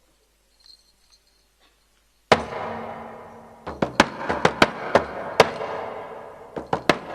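Near silence, then, about two seconds in, a single stroke on a Yakut frame drum that rings on. From about halfway on come unevenly spaced sharp drumbeats, several a second, over the drum's ringing.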